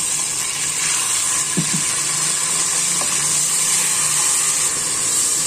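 Chopped garlic and onion sizzling in hot oil in an aluminium pot, with a steady hiss of steam from a few spoons of water just added to soften them. A wooden spoon stirs against the pot.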